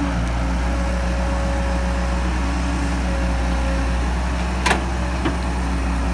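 Caterpillar excavator's diesel engine running steadily at an even pitch. About two-thirds of the way through come two sharp knocks half a second apart, the first louder.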